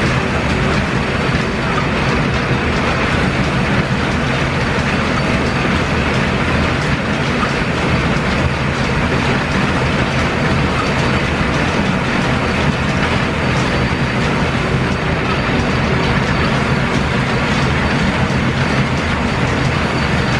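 Line-shaft-driven lathe turning a stressproof steel shaft, the tool taking a continuous cut with chips coming off; a loud, steady machine running noise throughout.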